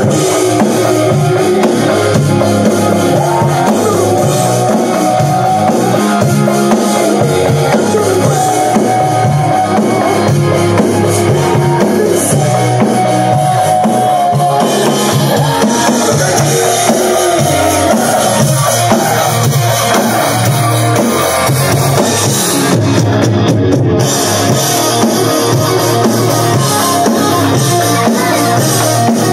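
Hard rock song playing loudly with guitars and a steady drum beat, with drums played along on an electronic drum kit.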